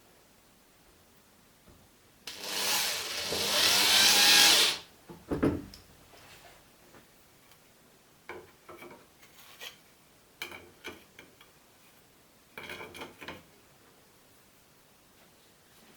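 A power tool running in one burst of about two and a half seconds, then a thump, followed by scattered knocks and clicks of tools and parts being handled.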